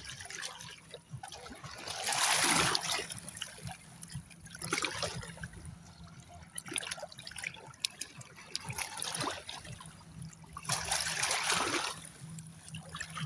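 Shallow seawater washing over and trickling among rocks, rising in several swells as waves come in and drain back, the strongest about two seconds in and near the end.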